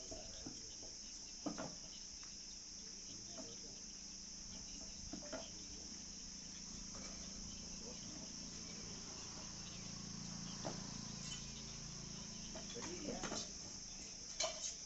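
Steady high-pitched insect chirring, with a few light knocks scattered through it.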